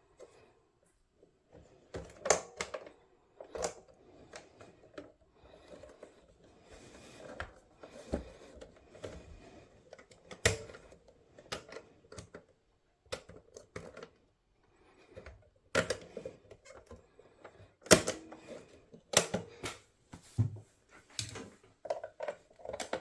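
Irregular sharp clicks, taps and knocks of small hard parts and tools being handled, with a few louder knocks, the loudest about two thirds of the way through, and faint rustling between them.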